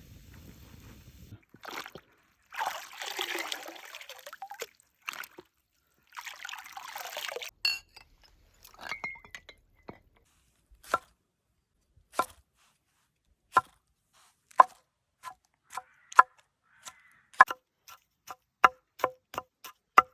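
Liquid poured twice, each pour lasting about two seconds, then a run of sharp, ringing knocks that come faster and faster.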